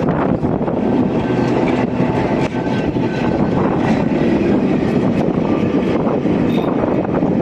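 Blackpool's illuminated Western Train electric tram passing close by on street track: a steady rumble of steel wheels on the rails, with repeated clicks and rattles and a few brief faint squeals.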